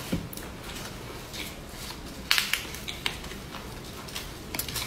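Crisp lettuce leaves crinkling and snapping as they are crumpled and folded around a piece of sausage, in a few sharp crackles, the loudest cluster about two seconds in and more near the end.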